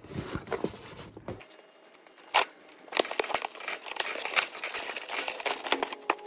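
Cardboard box being opened by hand: flaps pulled apart and packing tape torn, with crinkling and scraping of cardboard and a few sharp cracks, the loudest about two and a half and three seconds in.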